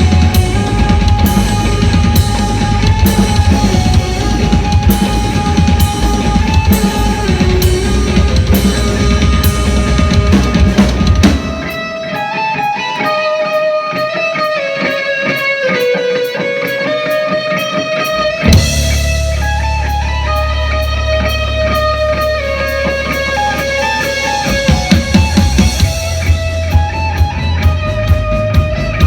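Rock band playing live: drum kit, bass and electric guitar. About eleven seconds in the drums drop out, leaving melodic guitar lines. A low held bass note comes in a few seconds later, and the drums return near the end.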